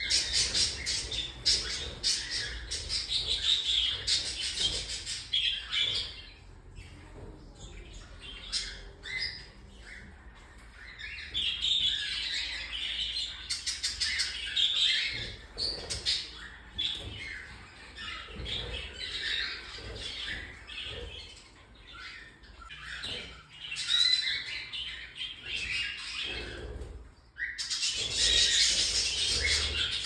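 Young cockatiels chirping and squawking in quick, dense calls, louder again near the end.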